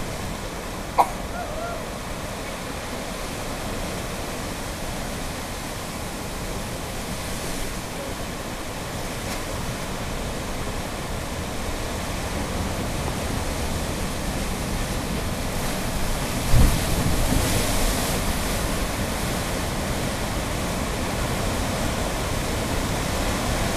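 Ocean surf surging and washing into a narrow rocky sea chasm, a steady rushing that grows louder toward the end. A short sharp click comes about a second in, and a brief low thump comes about two-thirds of the way through.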